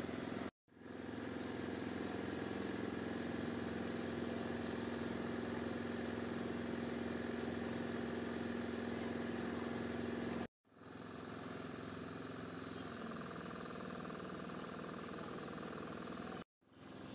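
Steady hum of an idling engine. It cuts out for a moment three times: about half a second in, about ten seconds in, and near the end.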